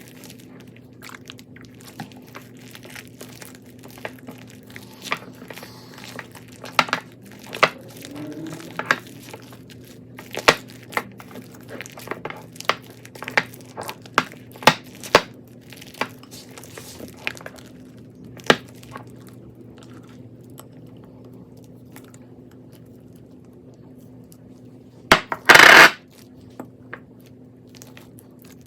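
Crunchy slime packed with beads being pressed and squeezed by hand: irregular crisp crackles and pops, thick at first and thinning out later, with one loud burst of noise about 25 seconds in. A faint steady low hum lies underneath.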